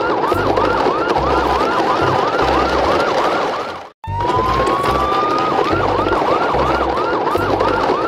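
An electronic siren wailing in quick sweeps, about three a second, over a low regular beat. About four seconds in it cuts out for a moment, then starts again with one long rising tone before going back to the quick sweeps.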